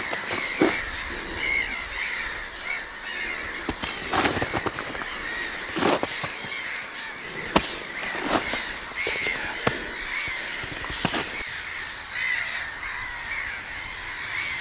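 Harsh, wavering crow-like bird calling that runs on without a break and cuts off suddenly near the end, with sharp clicks and crunches scattered through it.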